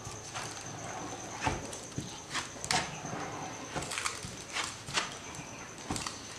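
Plastic spatula scraping polyester filler across a fiberglass-laminated sheet: a series of short scrapes and light taps, irregularly spaced, as each stroke is drawn and the blade lifted.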